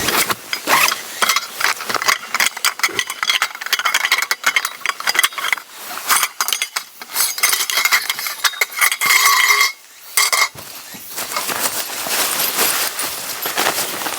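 Metal objects handled close to the microphone, clinking and clattering in quick irregular taps, with a brief ringing metallic tone a little past the middle.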